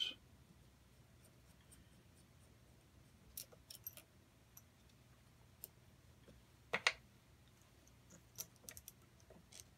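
Scattered light clicks and taps of a small metal bolt and nut being handled and fitted by hand, with one louder click about seven seconds in.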